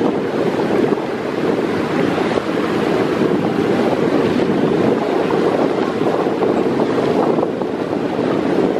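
Wind buffeting the microphone over rough, choppy river water with waves splashing: a loud, steady rushing noise with no clear engine tone.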